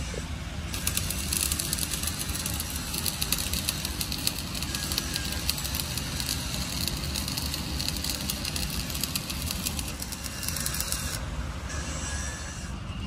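Metalworking workshop noise: a steady low rumble under a dense crackling hiss that starts about a second in and cuts off abruptly near the end.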